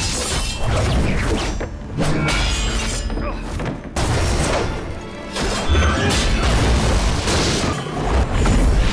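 Fight-scene film soundtrack: dramatic music over a series of heavy booming impacts and crashes from the sword fight.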